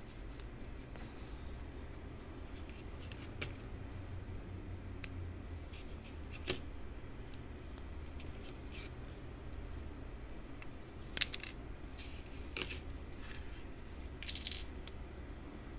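Faint handling noise: scattered small clicks and scratches as fingers twist a thin wire stem and handle a crocheted leaf, the sharpest click about eleven seconds in, over a low steady hum.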